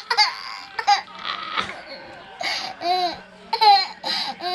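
A young child laughing in several short, high-pitched bursts.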